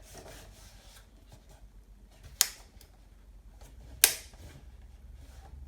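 Two short, sharp clicks about a second and a half apart, from parts of a Commodore C286-LT laptop being handled around its opened battery compartment.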